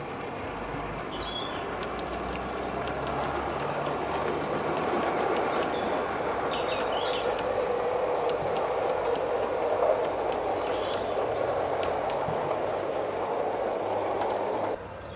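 Gauge 0 model train, an LNER B1 locomotive hauling Pullman coaches, running past on metal track: a steady rattle of wheels on rail that grows louder as the coaches pass, then cuts off suddenly near the end.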